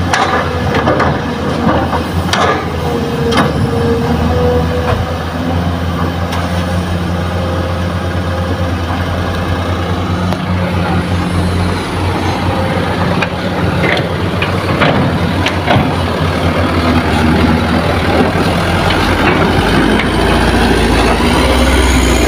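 Diesel engines of a Kobelco excavator and a dump truck loaded with fill soil running, with a few sharp knocks in the first seconds. The truck pulls away, its engine growing louder near the end.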